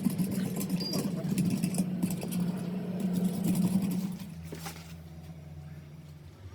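A machine's motor hums steadily under scattered clicks and knocks of tool work. About four seconds in, the knocking stops and the hum drops to a lower, quieter pitch.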